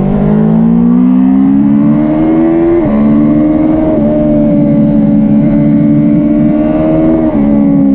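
BMW S1000R's inline-four engine accelerating hard on a race track, its pitch climbing through the revs. It drops sharply at an upshift about three seconds in, climbs again, and drops at a second upshift near the end.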